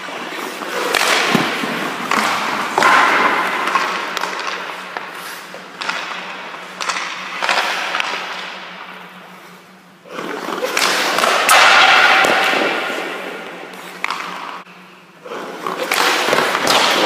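Hockey goalie's skate blades scraping and carving across the ice, with leg pads dropping and sliding on the ice, in several long swells that rise and fade, over a steady low hum.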